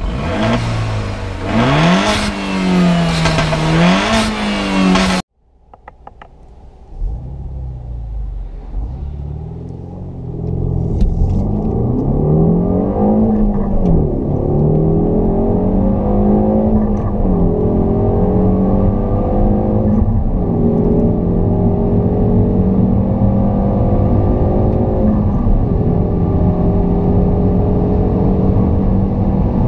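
Peugeot 308 GTi's 1.6-litre turbocharged four-cylinder engine, first revved several times with the car standing, then heard from inside the cabin under full-throttle acceleration. The engine note climbs through each gear and drops briefly at each upshift on the way to sixth.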